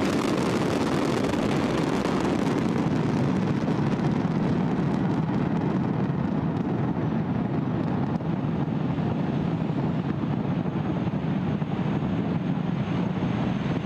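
Falcon 9 first-stage rocket engines in powered ascent: a steady, deep rocket-exhaust rumble whose upper hiss slowly fades.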